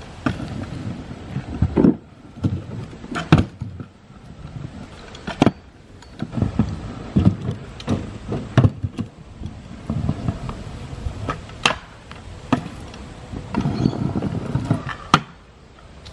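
Stunt scooter riding on rough concrete: the small hard wheels roll and scrape along ledges, broken by several sharp clacks as the deck lands and strikes the edges.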